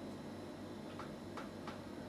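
Three faint, short squeaks and ticks of a marker pen on a whiteboard, coming about a second in as writing begins, over a low steady room hum.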